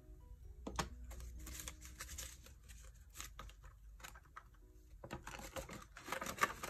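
Paper banknotes rustling and crinkling as a stack of US dollar bills is handled and counted, with one sharp click a little under a second in; the rustling gets busier near the end.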